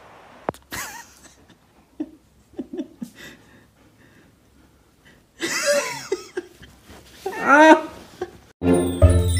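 A person laughing in two bursts, the first about halfway through and the second shortly after. Music with jingle bells comes in near the end.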